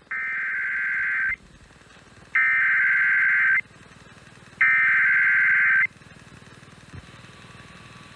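Emergency Alert System SAME header: three identical bursts of shrill digital data screech, each a little over a second long and about a second apart. This coded burst marks the start of a new alert broadcast.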